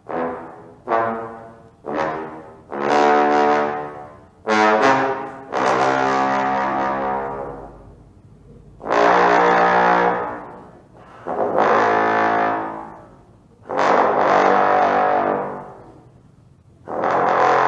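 Wind band with prominent brass playing: a run of short accented chords, then longer held chords that swell and die away.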